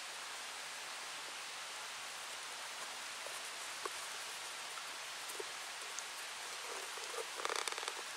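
Steady faint background hiss with a few soft ticks. About seven and a half seconds in there is a short burst of rapid scratchy rustling as thin household string is pulled tight and knotted around a split log.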